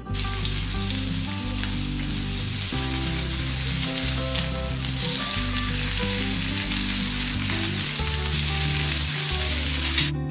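Chicken breast pieces sizzling steadily as they fry in butter in a pan, with background music underneath.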